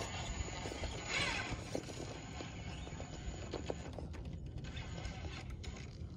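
Radio-controlled rock crawler crawling over rock: scattered, irregular knocks and clatter from its tires and chassis on the stone, with a brief louder swell about a second in.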